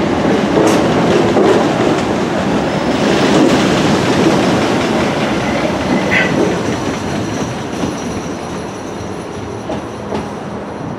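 Southeastern electric multiple-unit train running past the platform, its wheels rumbling and clattering on the track; the noise fades steadily over the last few seconds as the train moves away.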